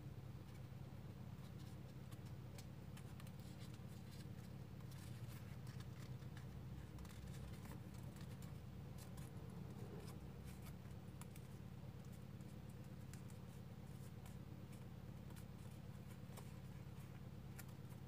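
Origami paper being folded and creased by hand: faint crinkling with many small, scattered crisp ticks, over a steady low hum.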